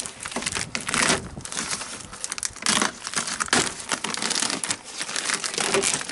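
Plastic door membrane on a 2006 Ford Ranger's door being handled and peeled back from the door shell, crinkling and crackling in irregular bursts.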